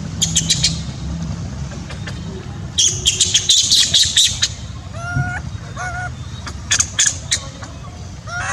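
Animal calls: bursts of shrill squawks, loudest about three seconds in, then a few short calls that rise in pitch, over a low steady background rumble.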